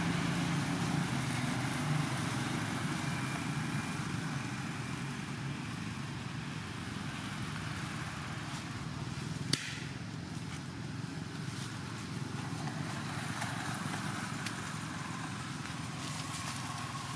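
Steady low hum of a motor engine running in the background, with a single sharp click about nine and a half seconds in.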